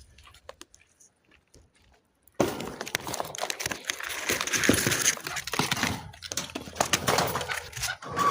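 Partridges scuffling and flapping their wings in a fight: a dense rustling, crackling noise that starts abruptly about two and a half seconds in, after near silence.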